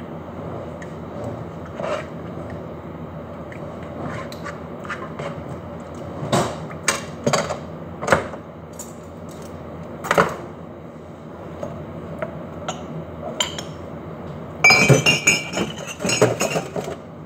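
Kitchenware being handled: scattered clinks and knocks, then a busier ringing clatter near the end, over a steady low hum.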